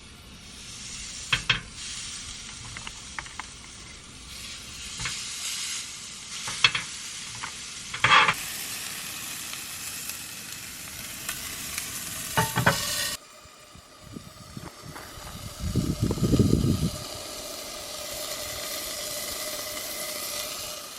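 Sausages frying in a pan with a steady sizzle, with a few sharp clicks and scrapes of a utensil in the first half. The sizzle drops abruptly about two-thirds of the way in, and a dull low bump follows a few seconds later.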